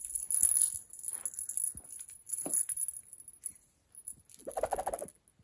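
Small jingle bell on a cat toy shaken in bursts, with a short voice-like sound near the end.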